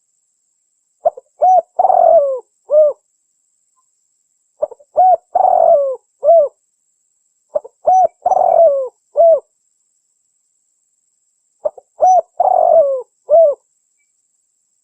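Spotted dove (tekukur) cooing. Four phrases come about every three to four seconds, each a few short coos followed by one longer rolling coo. It is a lure call for males, which the uploader gives as the female's call.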